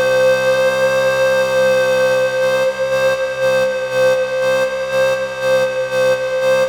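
BABY Audio BA-1 synthesizer holding one long lead note with a slight wobble, siren-like. From about two seconds in, a pulsing rhythm of about three beats a second runs underneath.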